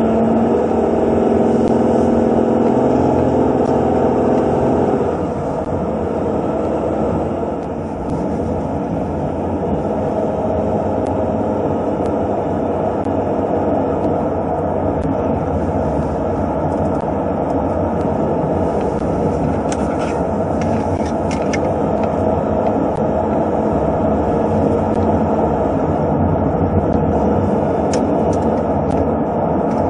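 Road and engine noise inside a moving car's cabin: a steady rumble, with a humming engine note for the first five seconds that then eases off. A few faint clicks come about twenty seconds in.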